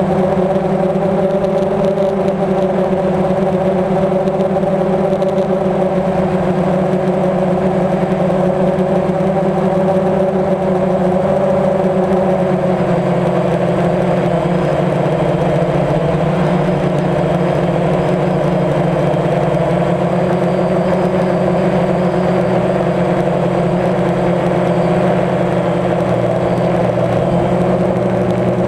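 DJI Phantom quadcopter's motors and propellers buzzing in flight, heard close up from the camera on board: a steady, loud hum whose pitch shifts slightly about twelve seconds in.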